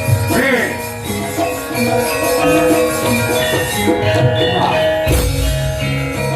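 Javanese gamelan ensemble playing: layered, held ringing notes from bronze metallophones over a deep low band, with a brief gliding melodic line about half a second in and again about four and a half seconds in.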